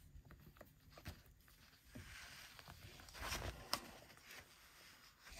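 Faint rustling of a large paper book being handled, with two light clicks a little past halfway.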